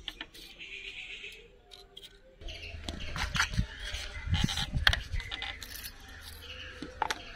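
Cardboard matchbox being handled, its tray slid open and wooden matches tipped into a palm: a few light clicks and rattles. A low steady hum comes in about two seconds in.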